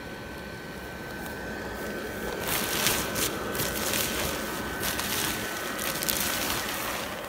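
Inflatable Christmas tree's built-in base blower fan running with a steady hum, while the tree's crumpled nylon fabric crinkles and rustles loudly from about two seconds in for about four seconds as it starts to fill with air.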